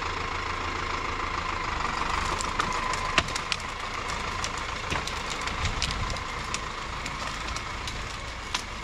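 Forestry tractor's diesel engine idling steadily, with a few sharp clicks over it.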